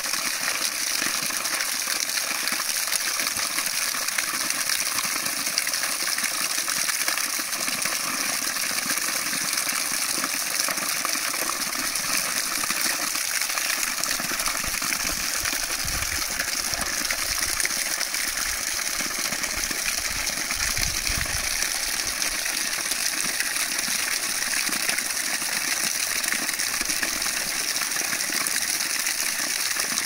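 Steady rushing of flowing water, unbroken and even in level, with a couple of brief low rumbles past the middle.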